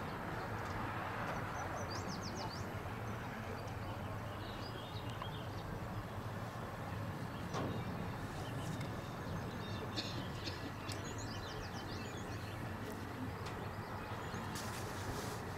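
Open-air ambience: a steady low outdoor noise with small birds chirping now and then.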